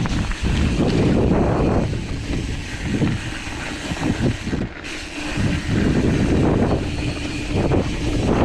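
Mountain bike rolling fast down a dirt singletrack: tyre noise and bumps over rough ground mixed with wind rushing over the camera microphone. It eases for a few seconds in the middle and then picks up again.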